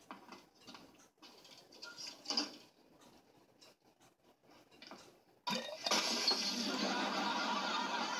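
Light clinks of a knife tapping a glass jar's lid, then about five and a half seconds in a sudden crash as the jar breaks, running straight into a long burst of sitcom studio-audience laughter, heard through a TV set.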